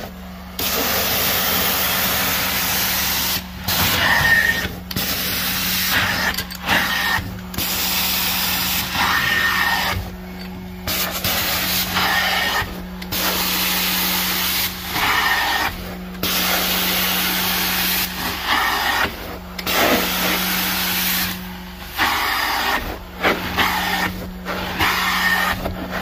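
Stair tool of a hot-water extraction ("steam") carpet cleaner working over carpeted stair treads: a loud rushing hiss of spray and suction in strokes of about one to three seconds, each broken by a short drop, over a steady low hum from the machine.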